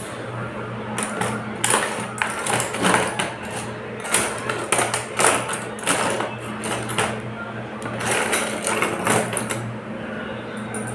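Grooming scissors snipping through a Pomeranian's coat in irregular runs of sharp cuts, over a steady low hum.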